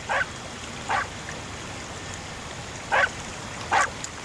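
Four short, sharp animal calls: one near the start, one about a second in, and a pair near the end, over a steady background hiss.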